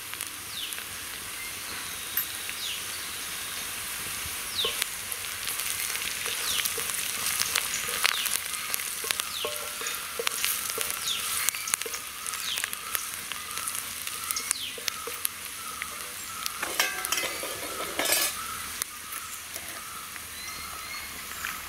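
Sliced onions, green chillies and curry leaves sizzling steadily in hot oil in a metal kadai. A wooden spatula stirs them, scraping and tapping against the pan many times.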